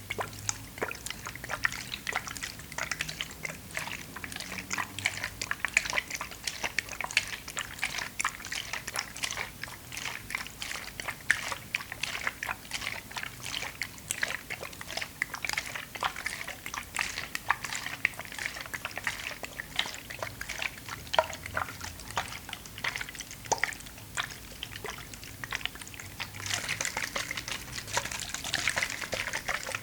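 Close-up water sounds: an irregular patter of small drips and splashes, many wet clicks a second. Near the end it turns into a denser, hissier splashing.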